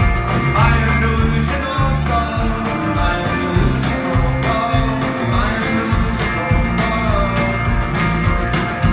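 Rock band playing live, with a steady drum beat under bass and guitar.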